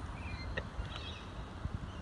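Outdoor ambience: a steady low rumble of wind on the microphone, with a few faint short bird chirps.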